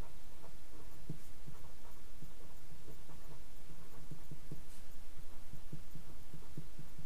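Felt-tip marker writing on paper: a run of short, irregular strokes and soft taps as the tip moves and lifts, over a steady low hum.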